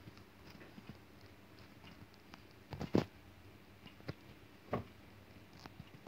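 Metal kitchen tongs clicking and clinking against a wire-mesh strainer of cooked noodles. A few scattered light clicks, with the loudest cluster about halfway through and another a little later.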